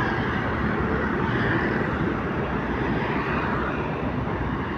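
Steady outdoor traffic noise: vehicles running past in a continuous, even wash of sound.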